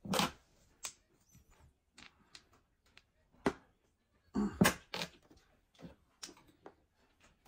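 Mahjong tiles clacking on the table as players draw and discard, a scattered string of short sharp clicks with the loudest few about four and a half seconds in.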